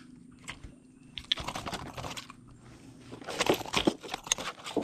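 Irregular crackling and clicking of fishing tackle and clothing being handled in a wooden canoe, in two spells: one starting about a second in, the other past the three-second mark.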